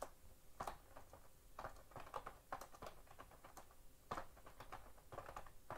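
Faint computer keyboard typing: a run of quick, irregular keystroke clicks.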